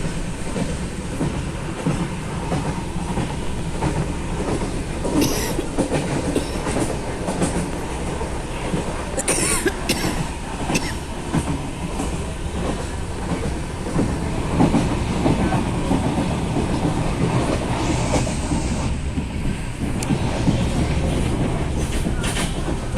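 Passenger train running along the track, heard from on board: a steady rumble with wheels clattering over the rail joints, and a few brief high-pitched screeches about five seconds in and again around the ten-second mark.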